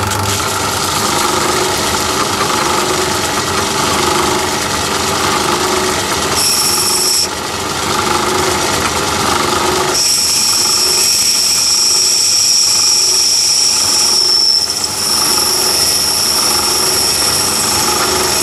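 Metal lathe running and cutting an aluminium die-holder blank: a steady mechanical din of motor, gearing and tool on the work. From about ten seconds in, a steady high whine rides over it.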